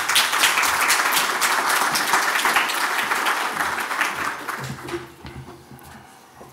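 Audience applauding after a speaker is introduced, dying away about five seconds in.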